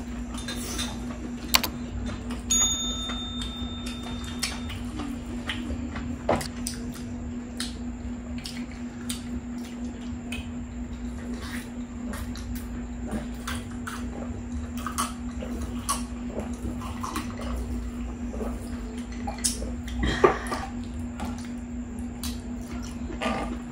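Close-miked eating: wet chewing and slurping of saucy food, with scattered clicks of metal tongs on the grill plate and dishes, over a steady low hum. A short electronic tone sounds about three seconds in.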